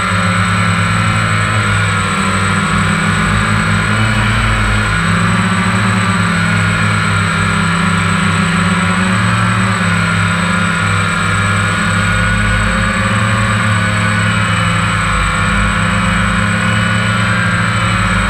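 Quadcopter's electric motors and propellers running, heard through a GoPro mounted directly on the frame. It is a steady, loud multi-tone whine whose pitch drifts up and down as the throttle changes.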